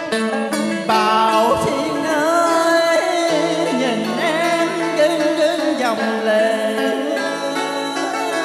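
A man sings a slow, ornamented Vietnamese cải lương vocal line, bending and wavering in pitch, over a karaoke backing track with plucked strings and a held bass note.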